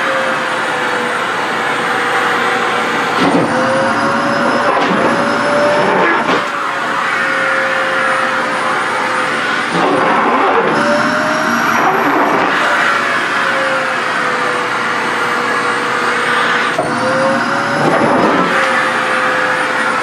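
SHARP EC-KP7F-A stick vacuum cleaner running steadily with its floor nozzle sucking at a thin cotton child's blouse. Its whine shifts in pitch several times as the cloth is drawn onto the nozzle.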